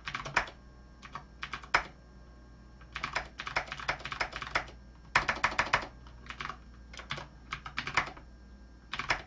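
Computer keyboard being typed on in short bursts of quick keystrokes with brief pauses between.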